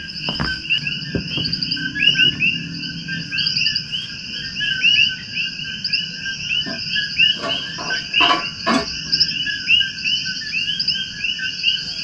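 Dense chorus of coquí frogs, many short rising chirps overlapping without a break. A few sharp knocks sound over it between about seven and nine seconds in.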